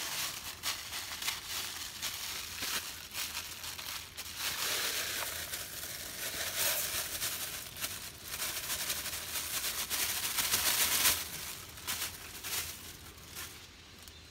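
Dry rice poured into a pot of hot oil and stirred, the grains crackling and rustling. The noise is thickest from about four seconds in until about eleven seconds, then dies down.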